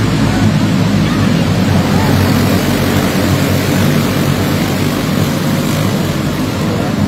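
A pack of racing go-kart engines running hard together, a steady, loud, continuous drone as the field passes through a corner, heard inside a large metal arena.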